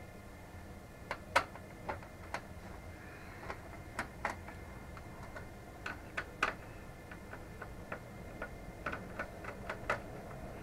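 Irregular light clicks and taps of hands handling cables and parts inside a desktop computer case being taken apart, the loudest about a second and a half in, over a faint steady hum.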